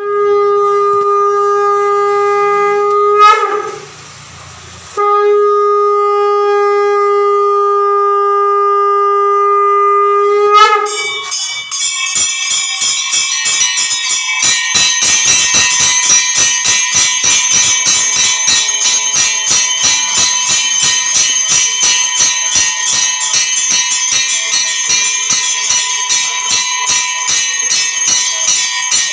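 A conch shell blown in two long, steady blasts with a short breath between, then temple bells clanging rapidly and continuously from about eleven seconds in, in the ritual din that greets the pongal pot boiling over.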